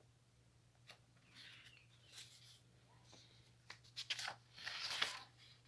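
Sheets of drawing paper rustling as they are handled and swapped, in a few irregular bursts with sharp clicks, loudest about four to five seconds in.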